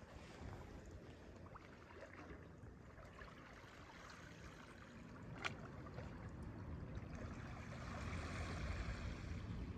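Faint steady wash of sea water against the shore, swelling near the end, with a single sharp click about five and a half seconds in.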